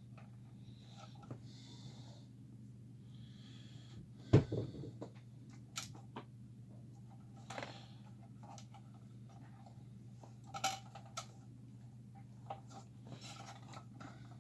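Small clicks and knocks of wire and tools being handled on a workbench, with one sharp knock about four seconds in, over a steady low hum.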